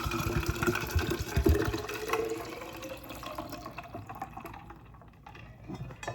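Water running into a drinking cup or water jug, the tone slowly rising in pitch as it fills, then tapering off about four to five seconds in.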